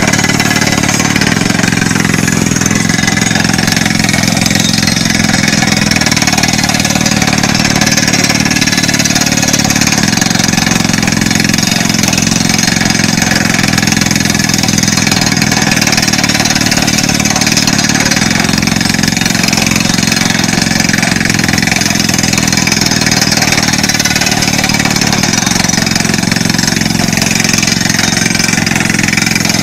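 Crawler rock drill drilling into rock, running steadily and loudly without a break, with compressed air blowing the rock dust out of the hole.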